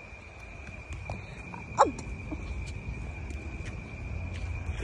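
Insects trilling in one steady high note over a low outdoor rumble. About two seconds in, a single short cry falls in pitch.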